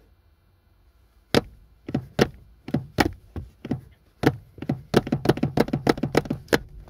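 Sneaker sole and car accelerator pedal knocking as the pedal is pumped. The knocks are sharp and separate, sparse at first, then quicken to about four a second near the end.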